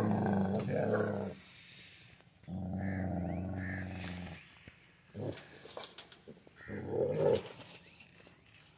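Dog growling: two long, low growls, the second about two seconds long, followed by a few shorter, sharper growling sounds near the end.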